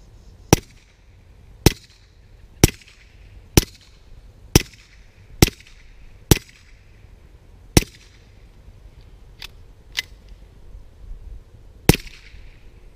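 Suppressed .22 LR shots from a GSG Firefly pistol fitted with a Silencerco Warlock 2 suppressor. Eight shots come about a second apart, then two fainter sharp reports, then one more shot near the end.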